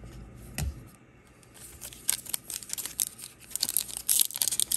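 Foil trading-card pack wrapper crinkling and tearing in the hands as it is opened, a rapid run of sharp crackles starting about a second and a half in and growing louder toward the end.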